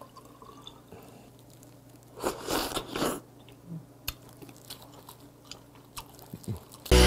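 A person slurping a raw oyster from its shell and chewing it close to the microphone. There is a louder wet slurp about two seconds in, then soft chewing and smacking. Music starts right at the end.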